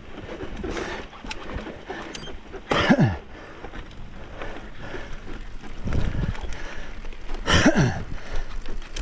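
A mountain biker's two hard, grunting exhales, each falling in pitch, about three seconds in and again near the end, as he labours up a steep rocky climb; low knocks and rattles from the bike over rocks in between.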